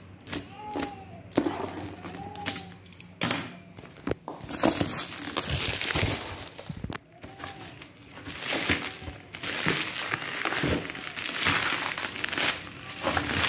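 Clear plastic packaging crinkling and rustling as it is handled and pulled around a cardboard air fryer box, with scattered sharp clicks and knocks.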